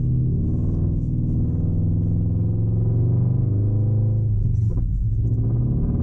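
Subaru BRZ's flat-four engine and tyre noise heard from inside the cabin while driving, a steady low hum.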